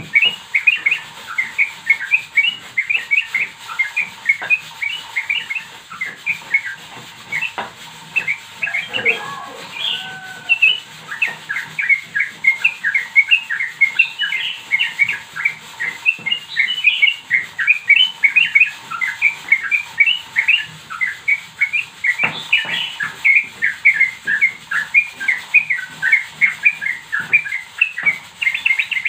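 Young yellow-vented bulbul (trucukan) chirping: an unbroken run of short high chirps, several a second, with a few longer whistled notes about ten seconds in.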